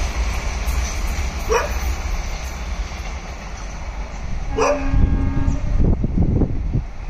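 Rumble of an express train's passenger coaches on the rails, fading as the train recedes, with a dog barking twice, about a second and a half in and again near five seconds. Low buffeting thumps follow near the end.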